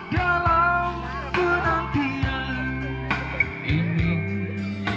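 Background music: a Malay-language song with a singing voice held on wavering notes over guitar accompaniment.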